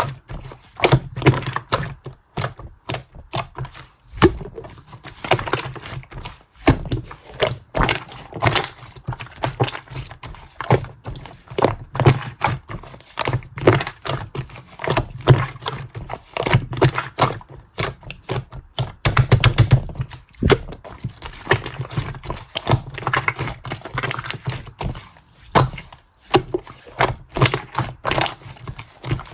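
Clear slime being squished and pressed by hand, making rapid, irregular clicks and pops.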